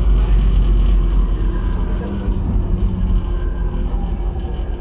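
AnsaldoBreda driverless metro train heard from inside, running into a station: a steady low rumble of wheels on rail with a faint motor whine, easing slightly in loudness as the train slows.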